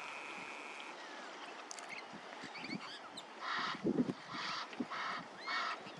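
Egyptian geese honking, with three loud harsh calls in the second half and small bird chirps around them.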